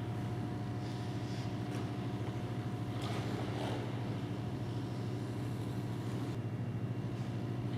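Steady low machine hum of an ice rink's plant, with a few faint scrapes of skate blades on the ice about three seconds in.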